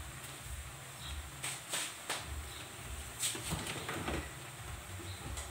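Low pulsing hum with a few faint clicks and knocks, small kitchen handling noises while a wok of vegetables cooks on a gas stove.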